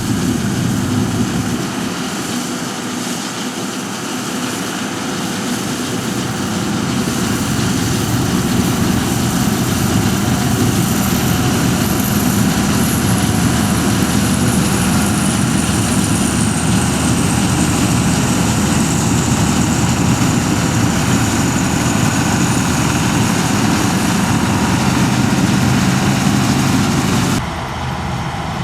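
Combine harvester running steadily, with a faint high whine that slowly falls in pitch through the middle. Near the end the sound cuts abruptly to a quieter machine.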